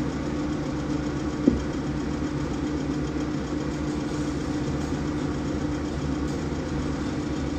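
Steady low machine hum, like an idling engine, with one sharp click about a second and a half in.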